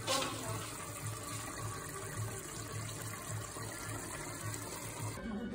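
Lamb biryani simmering in a stainless steel pot on the stove, a steady watery bubbling noise.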